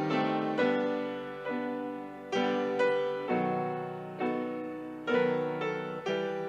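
Piano playing slow, gentle chords; each chord is struck, rings and fades before the next one, about one or two a second.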